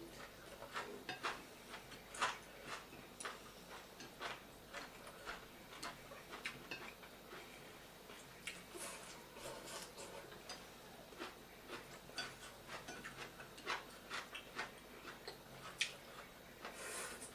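Close-miked eating sounds: irregular wet chewing clicks and lip smacks from people eating momo and chowmein, with a couple of brief louder rushes.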